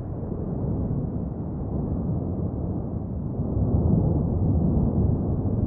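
Cumbre Vieja volcano erupting: a continuous deep rumble from the vent, a little louder about four seconds in.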